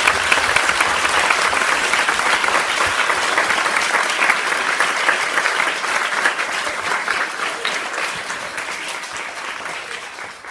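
Audience applauding: dense, steady clapping that dies away over the last couple of seconds.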